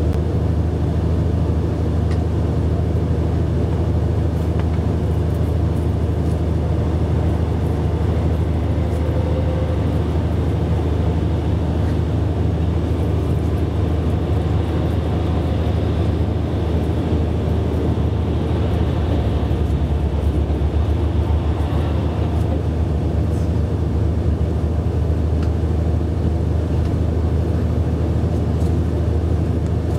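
Steady low drone of a KiHa 72 series diesel railcar's engine, heard from inside the passenger car, with a slightly brighter hiss in the middle of the stretch.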